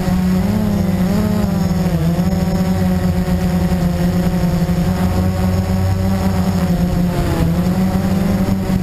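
Blade 350QX quadcopter's four brushless motors and propellers buzzing, heard from the camera mounted on the drone itself. The pitch wavers as the motors speed up and slow down, dipping about two seconds in and again near the end.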